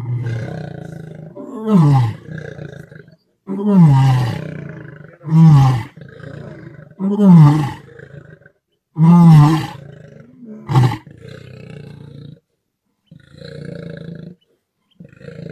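Male lion roaring: a series of about six loud roars, each falling in pitch, coming every one and a half to two seconds. Near the end they trail off into softer, shorter grunts, the usual close of a lion's roaring bout.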